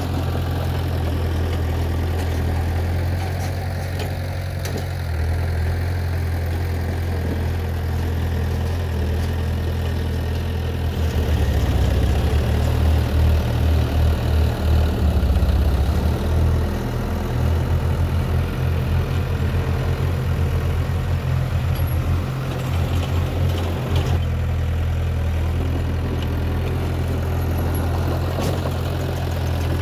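Heavy diesel earthmoving machinery running with a deep, steady engine drone. From about a third of the way in, it gets louder and throbs rapidly for around ten seconds, as if working under load, then settles back.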